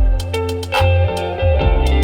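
Live music played loud: deep sustained bass notes changing every half second or so under a plucked, guitar-like melody, with short high percussion ticks keeping the beat.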